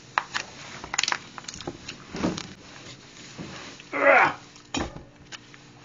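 Eating at a table: scattered clicks and rustles of food being handled and chewed, with a short, loud baby's cry about four seconds in.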